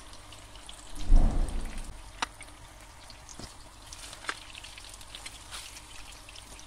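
Eggplant slices frying in hot oil in a pan, a steady crackling sizzle, with a few sharp clicks of a fork against the pan as the slices are turned. A low thump about a second in is the loudest sound.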